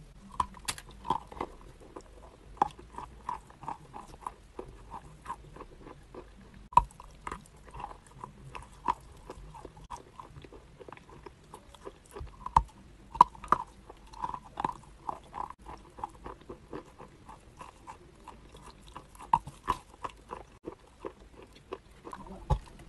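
Close-miked chewing and biting of soft wet chalk: a steady run of small crunches and wet mouth clicks, about three a second, with a few louder sharp bites.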